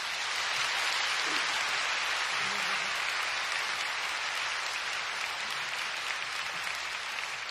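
Audience applause from a large crowd, swelling in at the start, holding steady and easing off slightly toward the end.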